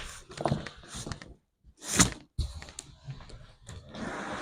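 A large cardboard shipping box being shifted and tipped over by hand: scraping and rustling cardboard with knocks, and one loud thud about two seconds in.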